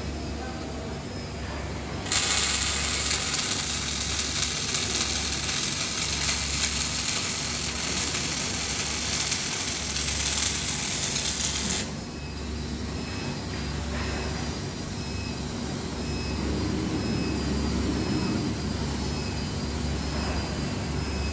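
Robotic arc welding: the welding arc strikes about two seconds in and burns with a steady crackling hiss for about ten seconds, then cuts off abruptly. Before and after it, the OTC welding robot's arm motors hum with a low, pulsing sound as the torch moves to the next joint.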